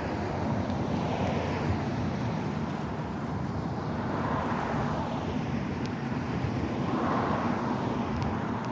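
Wind buffeting the microphone: a steady low rushing rumble that swells three times.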